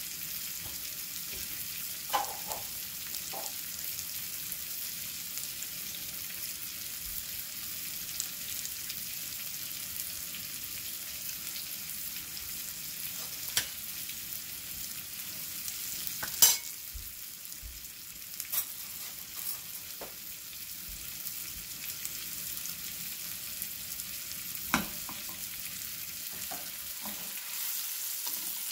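Rib eye steak and chopped onions frying in a skillet: a steady high-pitched sizzle, with a few sharp clicks now and then, the loudest about halfway through.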